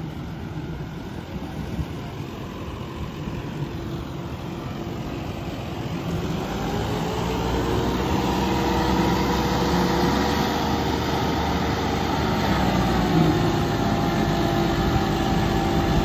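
Two John Deere tractor engines, a 5210 and a 5075E, working under heavy load as they pull against each other on a chain. The engines get louder and settle into a steady strained note about six seconds in.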